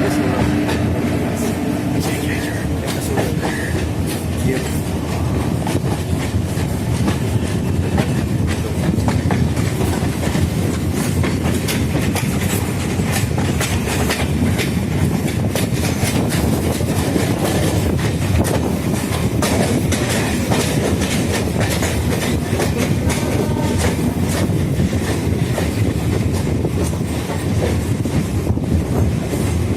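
A passenger train running on jointed track: a steady loud rumble with rapid clickety-clack of wheels over rail joints and points.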